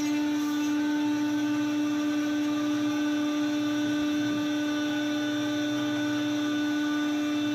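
Sawmill machinery running with a steady, even whining hum that holds one pitch and does not change.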